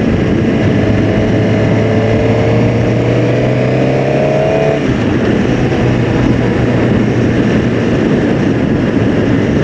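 Suzuki GSX-R600 inline-four motorcycle engine pulling at highway speed under heavy wind rush on the microphone. The engine note rises steadily in pitch for about four seconds, then drops out abruptly about five seconds in, leaving mostly wind roar.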